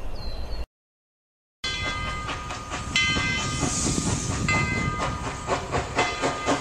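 A few faint bird chirps, a second of silence, then a steam train: its whistle blows twice with a hiss of steam, and it ends in a fast rhythmic chuffing and clatter of about five beats a second.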